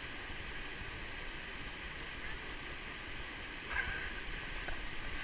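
Steady, even rush of a waterfall pouring into a pool. There is a brief faint sound just under four seconds in.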